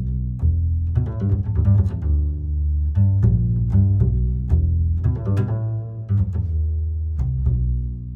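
Background music: low plucked and bowed string notes in a steady, stepwise melody.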